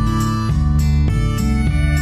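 Instrumental background music with plucked notes struck at an even, unhurried pace over a steady bass.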